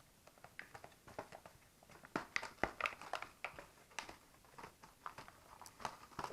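Hands unpacking an alarm kit: irregular crinkling of packaging and clicks of plastic parts being handled, busiest from about two to three seconds in.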